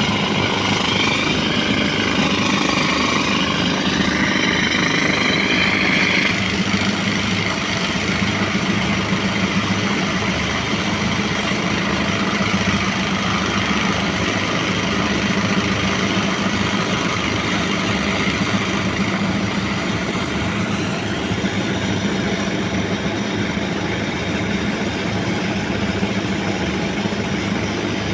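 Portable air compressor's engine running steadily, under the rapid hammering rattle of a pneumatic rock drill boring blast holes.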